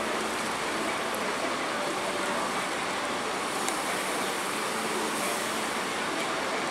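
Steady din of diesel buses idling and manoeuvring around a crowded fuel station, an even noise with no single event standing out.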